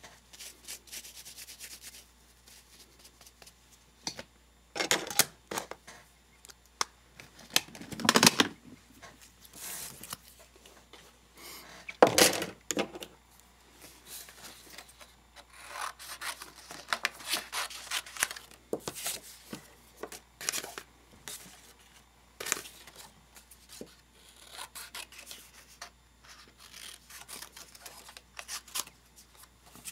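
Paper and patterned tape strips being handled, rubbed and cut with scissors: irregular rustles and scrapes with scissor snips, the loudest in a few short bursts in the first half.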